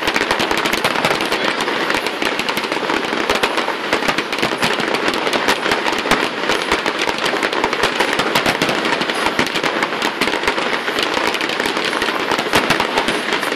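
Aerial fireworks display at full barrage: many shells bursting in rapid succession, giving a continuous, dense rattle of bangs and crackling with no pause.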